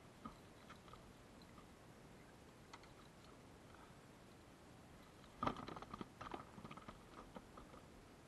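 Near silence, then about five and a half seconds in a quick cluster of light knocks and clicks lasting about a second and a half: handling noise as gear is moved about in a kayak.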